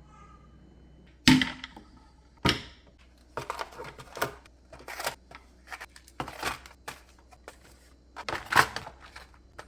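Hard items knocking and clacking against plastic refrigerator organizers as they are set in place during a fridge restock. Two loud knocks come first, then an irregular run of lighter clicks and clacks, with a louder knock near the end.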